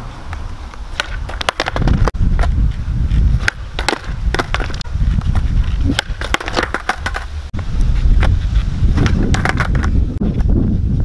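Skateboard on rough asphalt: its wheels rolling with a low rumble, broken by many sharp clacks as the deck is popped, flipped and slapped down during kickflip attempts.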